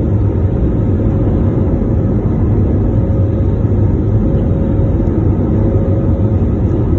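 Steady roar of an airliner's engines heard inside the cabin during takeoff and climb, a loud even rumble with a steady hum through it.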